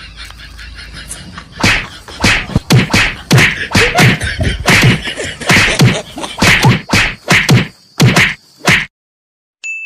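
A beating: a fast run of about fifteen loud whacking hits, roughly two a second, as blows land on a person lying on the ground, stopping suddenly near the end. A short high beep follows.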